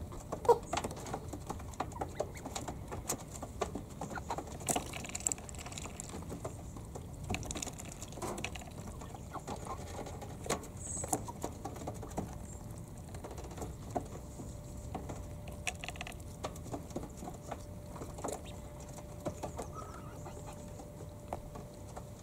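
Month-old Indian Runner ducklings making soft, short peeping calls while preening, over a continual light patter of small taps and clicks.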